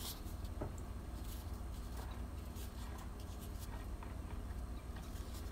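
Silicone spatula stirring a thin ketchup sauce in a glass bowl: soft, scattered scrapes and light taps against the glass, over a low steady hum.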